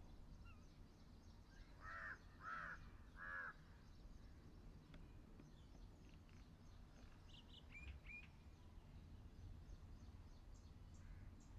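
A crow cawing three times in quick succession, with a few faint higher bird chirps later, over a low, quiet background hum.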